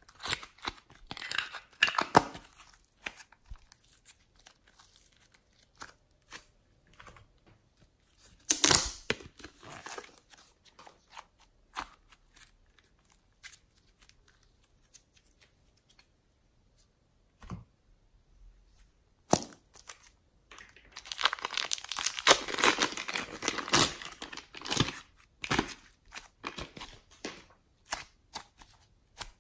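Hands squeezing, folding and stretching soft foam clay and glossy slime: irregular sticky clicks and crackles, with a loud cluster about nine seconds in and a dense run of crackling about two thirds of the way through.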